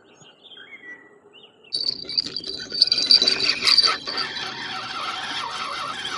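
A few faint bird chirps, then from almost two seconds in the steady whirring of a spinning reel being cranked as a fishing line is wound in, with a thin high whine over its first couple of seconds.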